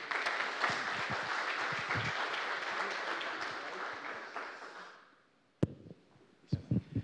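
Audience applauding, the clapping fading out after about five seconds. A single sharp click follows shortly after.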